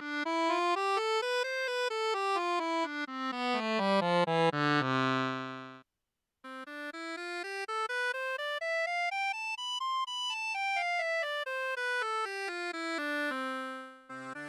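Tianshuo digital accordion's right-hand accordion voice playing quick scale runs up and down, ending on a held chord. After a short break about six seconds in, another up-and-down scale ends on a held note, and a new voice starts just at the end.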